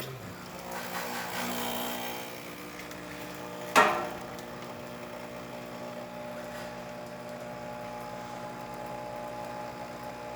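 Breville Oracle Touch espresso machine dispensing hot water: its pump hums steadily, with a rushing hiss over the first couple of seconds. A single sharp knock comes about four seconds in.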